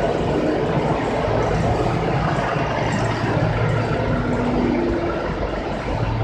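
Sawdust charcoal making machine running: a steady mechanical drone with a low hum underneath.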